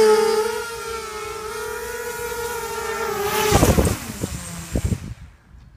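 Quadcopter's four EMAX MT2204-2300KV brushless motors and 5040 propellers whining steadily, wavering slightly in pitch. About three and a half seconds in the whine gives way to a clatter and then a few sharp knocks as the quad sets down, and the sound cuts off about five seconds in.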